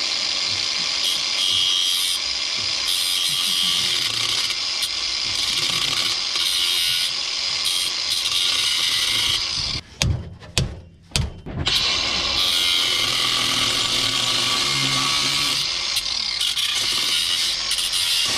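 A power tool running on the exhaust bolts in one long continuous run. It stops about ten seconds in, gives a few brief bursts, then runs steadily again until near the end.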